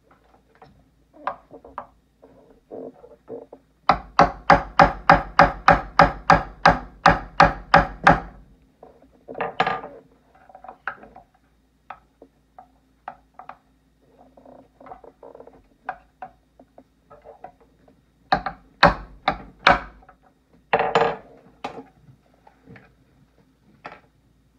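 Chef's knife striking a cooked lobster claw on a wooden cutting board in a fast run of about four knocks a second to crack the shell. A few louder knocks come later, with small cracks and snaps of lobster shell being broken apart by hand.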